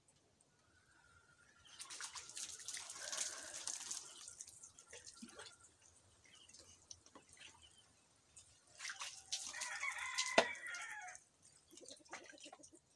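Water poured from a plastic dipper over a person's head in a bucket bath, splashing and dripping, in two spells: about two seconds in and again about nine seconds in. A rooster crows during the second pour.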